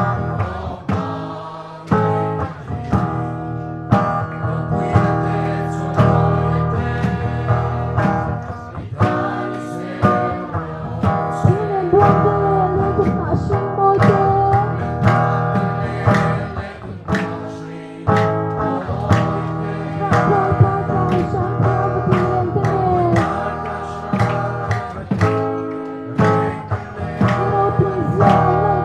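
Congregation singing a worship hymn over instrumental accompaniment with a steady beat about once a second.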